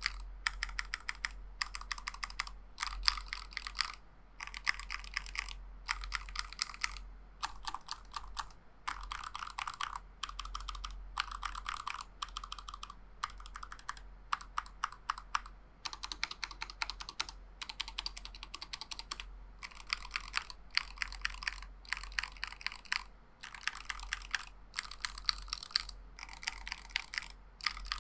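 Typing on a KBD75 mechanical keyboard with linear Tealios V2 switches in a brass plate: fast runs of crisp keystroke clicks and clacks, broken by brief pauses.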